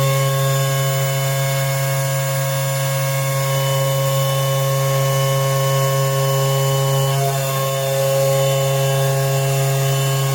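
An 11 kW milling spindle running a 63 mm face mill across a flat surface: a steady machining sound with a strong low hum and several steady whining tones, which shift slightly about seven seconds in.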